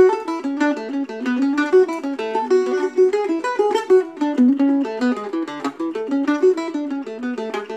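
Weber octave mandolin flatpicked solo, playing an Irish reel as a quick, even run of single picked notes.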